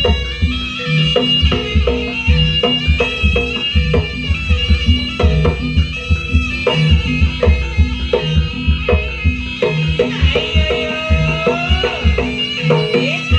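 Javanese jaranan music: a shrill reed pipe carries the melody over a steady, regular beat of drums.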